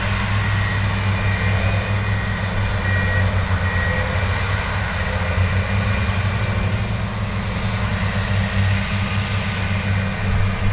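Diesel engine of heavy earthmoving equipment, such as a pan scraper, running steadily with a low, even engine note.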